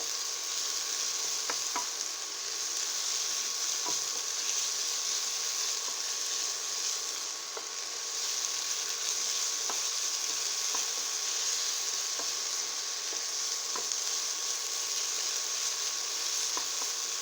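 Onion, spring onion and ginger sizzling steadily in sesame oil in a hot pan, with a few light ticks from a utensil stirring them.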